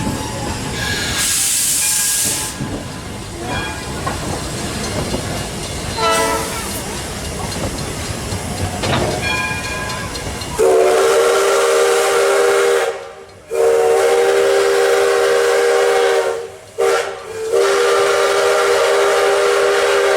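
Steam train running with a brief hiss of steam about a second in. From about halfway through, the locomotive's steam whistle, several tones sounding together, blows two long blasts, one short and one long: the grade-crossing signal.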